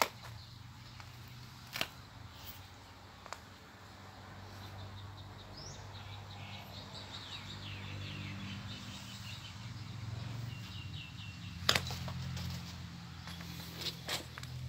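Small birds chirping in quick series over a low steady hum that swells and fades, with a few sharp clicks, one about two seconds in and a louder pair near the end.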